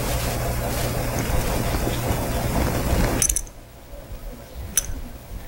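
Vinyl electrical tape being pulled off its roll and wrapped around a cable connector: a steady crackling peel that stops abruptly about three seconds in, followed by a single click near the end.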